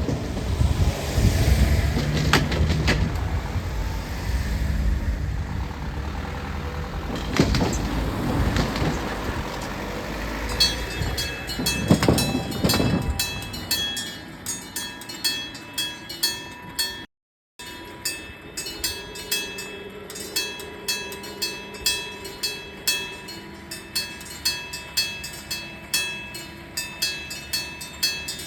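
A train passes over the level crossing with a heavy rumble and sharp wheel clacks, fading after about twelve seconds. Meanwhile the old electric-bell crossing alarm strikes its bell over and over, about one and a half strokes a second, with a ringing metallic tone rather than an electronic beep. After a brief gap the bell strikes on.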